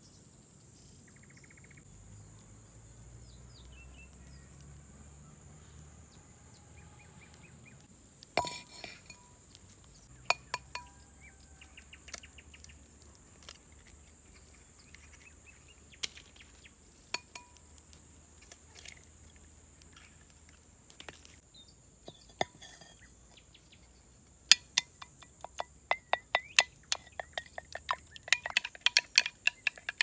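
Scattered sharp clicks, then a quick, uneven run of clinks near the end from a wooden spoon stirring inside a terracotta clay pot. A thin steady high tone runs underneath.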